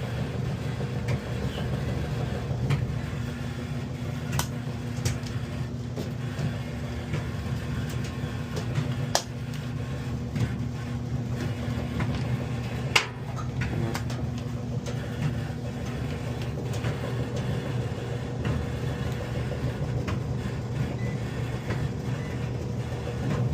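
Samsung electric dryer running, its drum motor giving a steady hum, with a few sharp clicks in between. The dryer is running but not heating.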